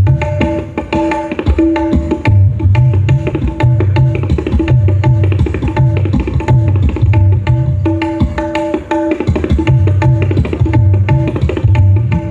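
Dangdut gendang (tabla-style hand drum pair) playing a fast rhythm: deep, pitch-bending bass strokes under ringing higher strokes. The bass strokes thin out for about a second around eight seconds in.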